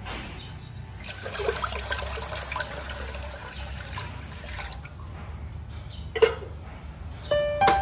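Water poured from a plastic jug into an empty stainless steel pot, splashing on the metal bottom for about four seconds. A short knock comes about six seconds in, and piano music starts near the end.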